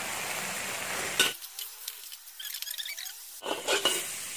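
Fern shoots sizzling as they stir-fry in an oiled wok. About a second in the steady sizzle cuts off sharply with a click, and near the end the metal spatula scrapes and clinks against the wok as the greens are turned.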